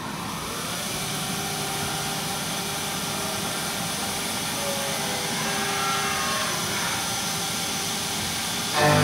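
Vision Wide VTEC NF 3232 double-column CNC machining center running, with its spindle spinning and a steady hiss of coolant mist spraying at the tool, and a few tones gliding as the head moves. Near the end the sound jumps abruptly louder into a many-toned whine as the cutter engages the workpiece and milling begins.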